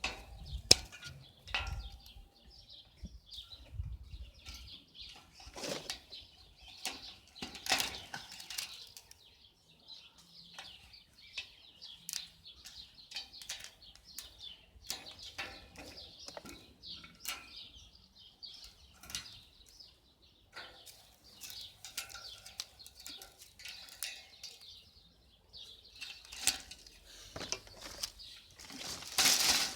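Irregular rustling with many scattered sharp clicks.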